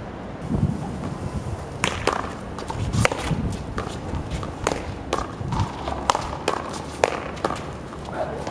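Paddleball rally: paddles smacking the ball and the ball hitting the concrete wall, in a string of sharp smacks about a second apart, with sneakers scuffing on the concrete court.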